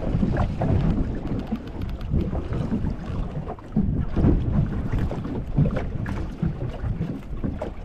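Wind buffeting the microphone in uneven gusts, with choppy sea water slapping against the hull of a small boat.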